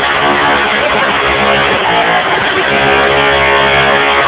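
Music with electric guitar playing loudly, with notes changing every fraction of a second.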